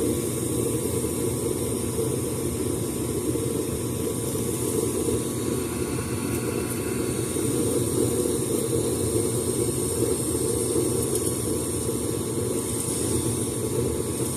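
Ruud mid-efficiency gas furnace running steadily, its burner flames and draft fan making an even, low rushing hum, while its gas pressure is dialed back at the valve.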